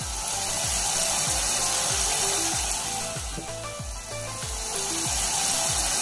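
Tap water running and splashing onto a bowl of whelks, a steady hiss, under background music with a steady beat.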